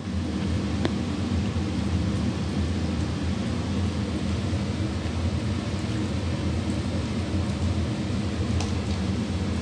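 Steady low rumble from a phone's microphone being handled and moved, with a couple of faint clicks, about a second in and near the end.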